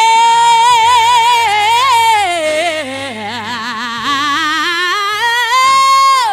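Female gospel singer holding a long high note with wide vibrato, sinking into a lower run in the middle and climbing back to a held high note that falls away at the end, over soft sustained low accompaniment.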